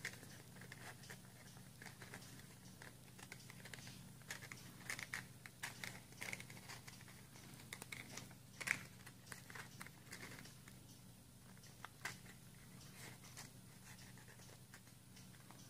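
Folded origami paper crinkling and creasing under the fingers as the paper cube's flaps are pressed and tucked: faint, irregular crackles, with one sharper crackle a little before nine seconds in.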